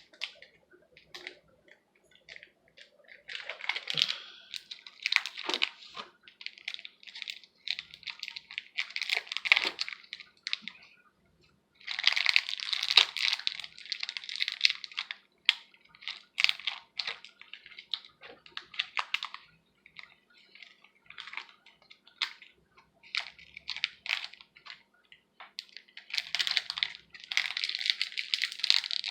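Clear slime being handled and squished by hand, giving irregular bursts of sticky crackling and popping with short pauses between.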